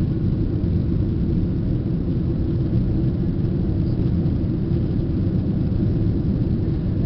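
Steady cabin noise of an airliner climbing after takeoff, heard from a window seat: jet engines and rushing airflow making an even, mostly low rumble.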